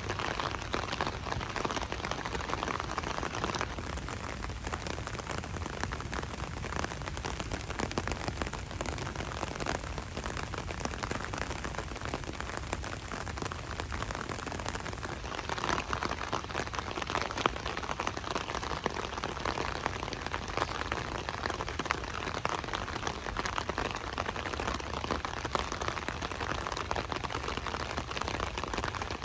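Light rain falling steadily, a dense patter of many small drop ticks on surfaces.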